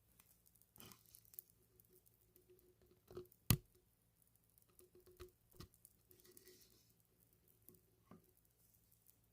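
Popping candy crackling, with small irregular pops and snaps and one sharp pop about three and a half seconds in.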